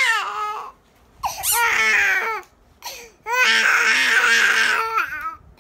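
A baby's loud, high-pitched crying in three drawn-out bouts, with short pauses between them.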